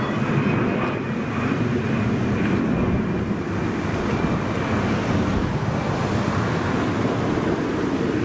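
Airbus A320 climbing away after takeoff, its jet engines a steady low rumble at a distance, mixed with wind noise on the microphone. A faint high tone fades out about three seconds in.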